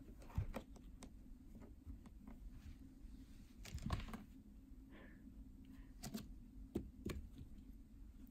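Scattered soft taps, scratches and a few louder knocks from a Siamese cat's paws and claws on a carpeted cat tree as she plays.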